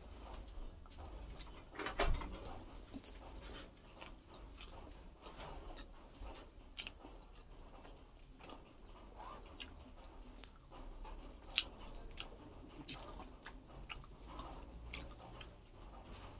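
A person chewing and eating food close to the microphone, with irregular small wet mouth clicks and crackles and a louder knock about two seconds in.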